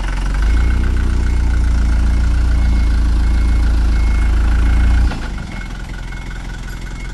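Small cab-over diesel truck's engine running under throttle with a heavy low rumble as the truck moves; about five seconds in the throttle comes off and it drops abruptly to a quieter, steady idle.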